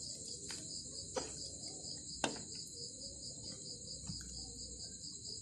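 Crickets chirring steadily in a high, continuous pulsing trill, with a few light clicks, the sharpest about a second and two seconds in.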